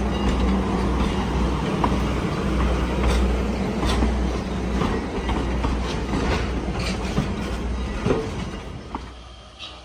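Railroad passenger coaches rolling past at low speed: a steady rumble of wheels on rail with sharp, irregular clicks as the wheels cross rail joints. The sound dies down near the end.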